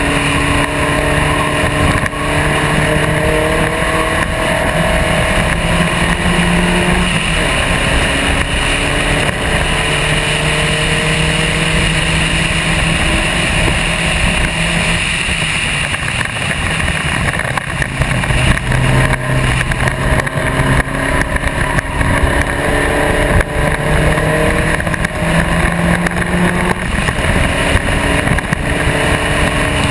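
SCCA Spec Racer Ford's engine at racing speed, heard from the car's own bodywork: the engine note climbs for several seconds, then drops and climbs again, a few times over. A steady rush of wind noise runs underneath.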